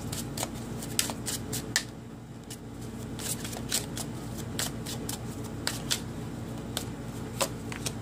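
Tarot cards being shuffled and handled: a loose, irregular run of soft clicks and flicks as the cards slide and snap against each other while a clarifying card is drawn.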